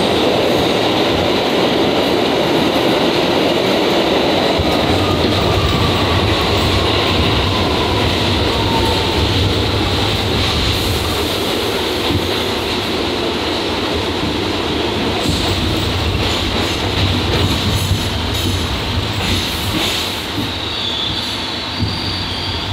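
Interior of an R62A subway car running on the track: steady wheel and track noise, with a faint falling whine about a third of the way in. The noise eases a little near the end.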